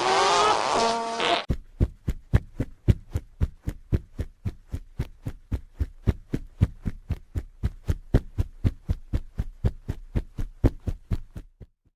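A hippopotamus's pitched, wavering fart ends. About a second and a half in, a long run of heavy hippopotamus stomps begins: sharp, evenly spaced thuds about four a second that fade out near the end.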